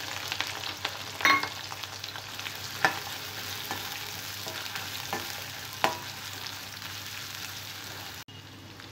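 Freshly added chopped onions and green chillies sizzling in hot oil in a kadai, stirred with a spatula that scrapes and knocks against the pan a few times. The sizzle drops suddenly quieter near the end.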